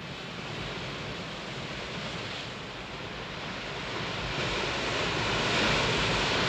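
Sea surf breaking on rocks: a steady rush of noise that swells louder about four seconds in.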